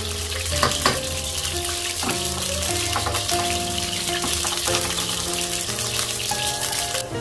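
Food sizzling as it fries in a pan, with a few sharp knocks in the first two seconds; the sizzle cuts off suddenly just before the end.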